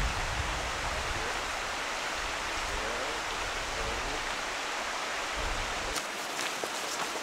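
Steady rush of flowing stream water, an even hiss. After about six seconds the water's low end fades and a few light footsteps click on the dirt trail.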